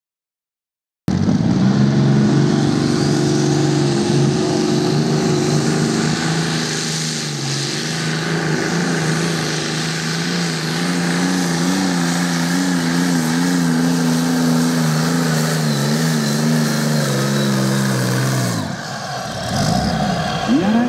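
Competition pulling vehicle's engine running hard under full load, holding a steady, slightly wavering pitch. It cuts in suddenly about a second in and drops away near the end.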